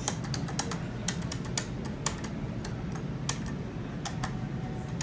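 Schindler traction elevator cab travelling down: a steady low hum with irregular sharp clicks and ticks, several a second.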